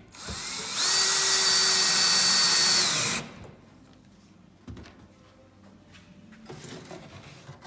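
Power drill driving a screw down through a cedar chair arm into the leg: the motor whine rises to speed within about a second, runs steady for about two seconds, then stops suddenly. A faint click follows a second and a half later.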